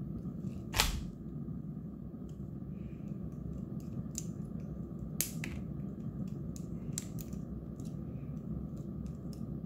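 Small snips prying welded nickel tabs up off 18650 cells and bending them back, giving sharp metallic clicks and ticks at irregular intervals. The loudest snap comes about a second in and another about five seconds in, over a steady low hum.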